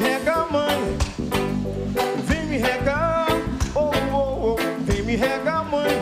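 Live reggae band playing, with a melodic lead line over a steady, regular beat.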